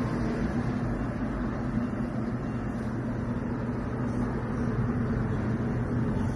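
Midea top-load washing machine running, a steady mechanical hum with a low, even drone.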